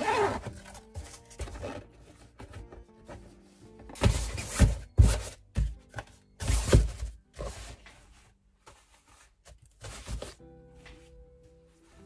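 A stiff white fabric storage box and its divider insert being handled and pushed together: a series of loud rustles and dull thunks, some short and some lasting about a second, over light background music.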